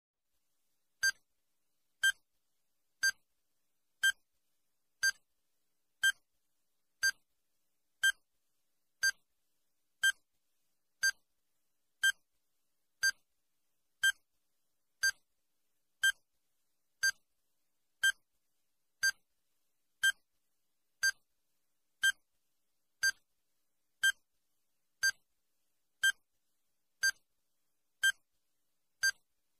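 Countdown timer sound effect ticking once a second: each tick a very short, sharp, high click-beep, with silence between.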